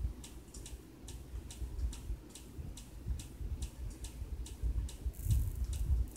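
Steady, even ticking, a little over two ticks a second, over a low rumble.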